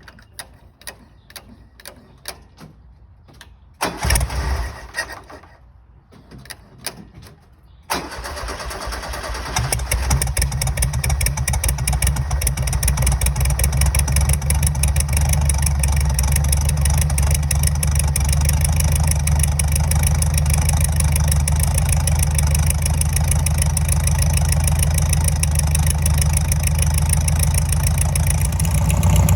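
Meyers Manx dune buggy's air-cooled VW flat-four engine being started: short bursts of cranking, then it catches about eight seconds in, picks up over a couple of seconds and settles into a steady idle.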